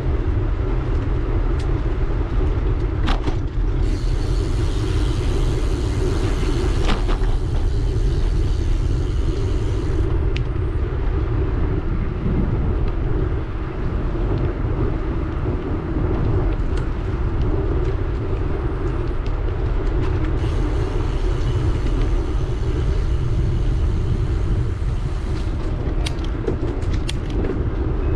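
Steady wind noise on the microphone of a moving bicycle, with the hum of tyres rolling on a paved trail and a few brief clicks.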